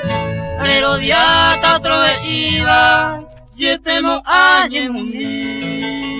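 Paraguayan folk music: male voices in short gliding vocal phrases over string accompaniment, with plucked harp notes coming to the fore near the end.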